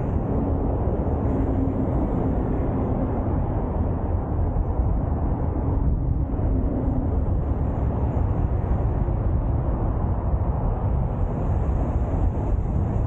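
Wind rushing over the microphone of a 360 camera carried on a moving bicycle, a steady low rumble with no breaks.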